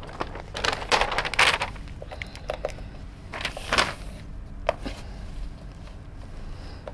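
A large paper sheet rustling as it is handled and pressed flat against a whiteboard. There is a louder swish of paper about three and a half seconds in and a few light taps against the board, the sharpest near five seconds in.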